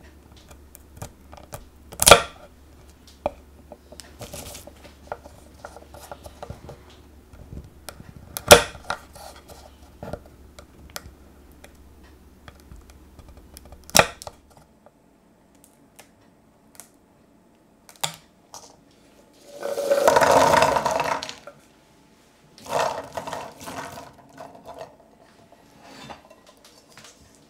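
Scissors snipping through raw chestnut shells on a wooden board: three sharp snips several seconds apart, with small clicks and rustling as the nuts are handled. Later comes a clatter of about a second and a half as the scored chestnuts rattle in a metal pot, then a shorter, weaker one.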